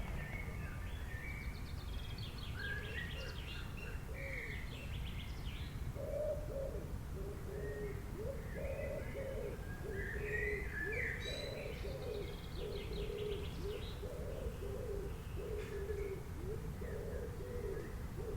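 Forest birds singing and chirping, with quick high trills and notes. From about six seconds in, a lower bird call repeats over and over, all over a steady low rumble.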